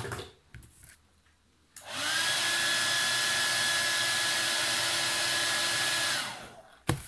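Hand-held hair dryer switched on about two seconds in, spinning up and then blowing steadily with a whine, and winding down near the end; it is heating a bag zipper's teeth to soften them so they can be shifted. A sharp click comes at the start and another just before the end.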